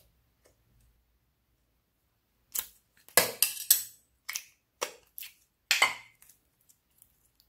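Slime being pulled out of its plastic tub by hand and pressed into a box of mixed slime: a quick run of sharp pops and crackles starting about two and a half seconds in, after a single click at the start.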